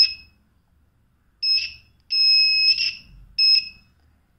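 Arduino circuit's buzzer sounding a steady high-pitched tone, switched on whenever the water sensor detects water. It cuts off just after the start, then sounds three more times: a short beep, a longer one of nearly a second, and another short beep.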